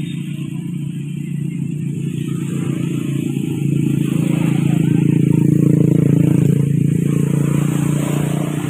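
A motor vehicle's engine drones steadily, swelling to its loudest in the middle and easing off near the end as it passes.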